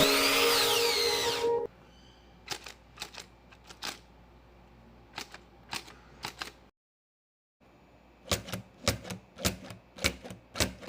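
Loud background music that cuts off abruptly about a second and a half in, followed by a series of sharp clicks and taps. The clicks are sparse at first; after a brief total silence past the middle they come at about two a second.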